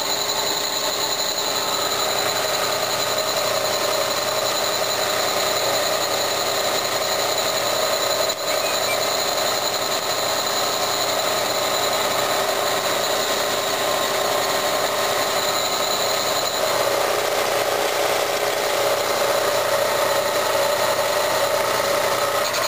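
Bridgeport milling machine running, its precision boring head turning in the bore of a 1980 Yamaha DT100 two-stroke cylinder and taking a boring cut: a steady high-pitched machine whine made of several held tones. About seventeen seconds in the highest tone fades and a lower one grows.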